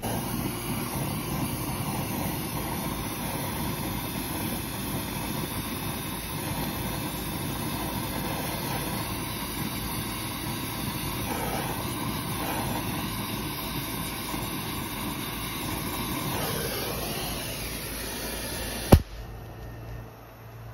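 Brazing torch flame roaring steadily while it heats a cracked copper tube in a condenser coil for braze repair. It cuts off with a sharp pop near the end.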